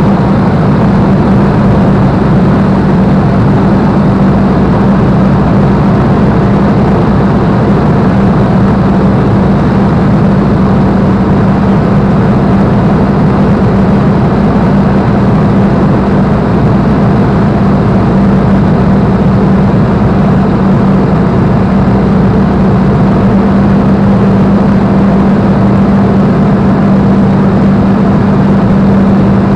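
Spitfire's V12 piston engine running steadily in flight, heard inside the cockpit: a loud, even drone with a strong low hum that holds one pitch, with no change in power.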